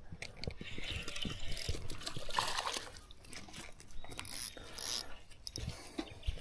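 Water splashing and dripping as a small hooked fish is brought in at the surface, with irregular clicks and knocks of handling.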